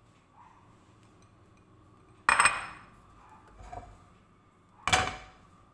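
Two sharp clinks of kitchenware, about two and a half seconds apart, each ringing briefly, with a softer knock between them.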